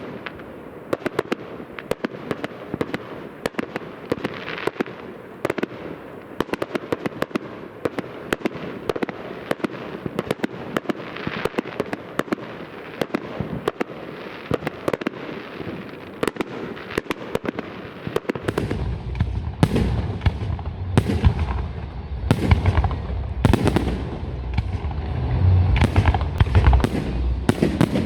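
Fireworks display: a dense, rapid run of sharp crackling bangs, joined about two-thirds of the way through by heavier, deeper bangs that come every second or so.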